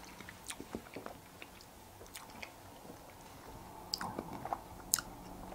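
Faint mouth sounds of a hard tangerine Ice Breakers Sours sweet being sucked and moved around in the mouth, with scattered small clicks that come a little thicker and louder about four to five seconds in.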